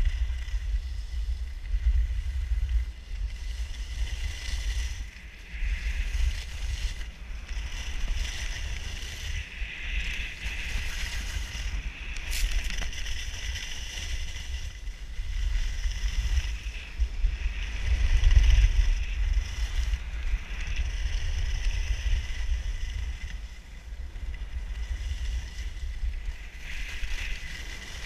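Wind buffeting the microphone while skiing downhill, a low rumble that gusts up and down and is strongest about eighteen seconds in, over the hiss and scrape of skis sliding on packed snow that rises and falls.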